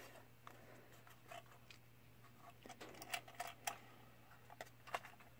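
Faint, scattered small clicks and taps of a model train boxcar being handled in the fingers, over a faint steady low hum.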